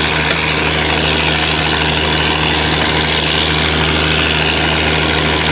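Tractor engine running steadily under load, powering a feed grinder that grinds shelled corn fed from a grain wagon. A constant low hum sits under a dense, even grinding hiss.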